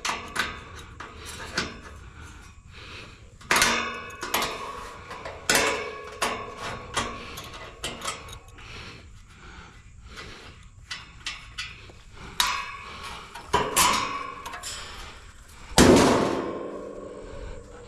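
Small ratchet wrench clicking and knocking against the wire fan grille of an air-conditioner condenser as its bolts are worked loose, a little at a time. Several ringing metal clanks come through it, with a loud clang near the end.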